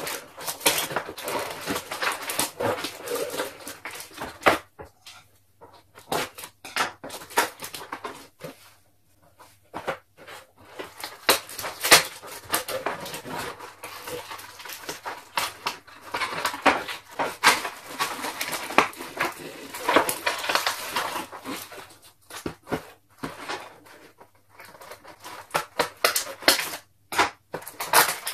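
Cardboard toy packaging being handled and pulled apart by hand, with tape being picked and peeled: irregular rustling, scraping and crisp clicks, broken by a few short pauses.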